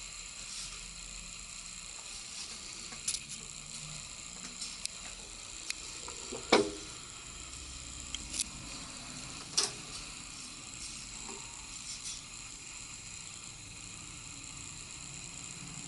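Technics SL-BD20 belt-drive turntable being operated: scattered mechanical clicks and knocks over a steady hiss. The loudest knock comes about six and a half seconds in, another about three seconds later.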